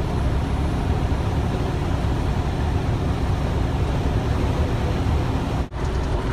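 Steady engine drone and road noise inside the cab of a Freightliner tractor cruising at highway speed. The sound briefly drops out near the end.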